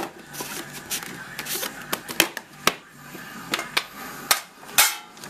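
Hands opening and handling a hard trading-card box: a string of sharp clicks and knocks as the lid comes off and the box is moved about, with a short scrape near the end.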